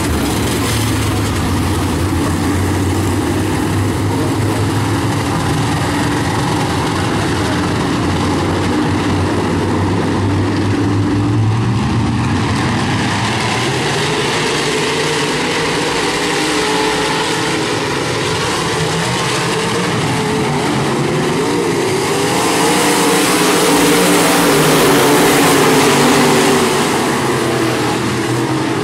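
Dirt-track Modified race cars' V8 engines running hard in a heat race. Their pitch rises and falls as the cars lap, and it grows louder for a few seconds about three-quarters of the way through as the field passes close.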